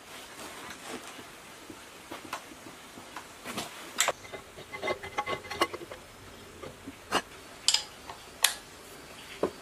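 Scattered metal clicks and clinks of a hand wrench and engine parts being handled while bolts are fitted on a diesel engine's cylinder head, with a run of short ringing clinks near the middle and a few sharper taps later on.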